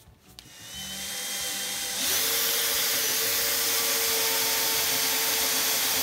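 Cordless brushless drill spinning up and boring the deadbolt hole into the edge of a wooden door. About two seconds in the bit bites into the wood and the drill runs steadily under load.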